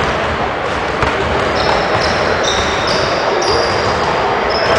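Basketballs bouncing on a hardwood gym floor amid a steady hall din, with a few short high squeaks over the second half.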